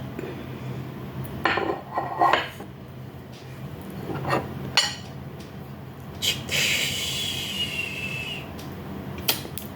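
Spoon and fork clinking and scraping against a plate: several separate clinks, and a longer scrape with a faint falling squeal about two-thirds of the way through. A low steady hum sits underneath.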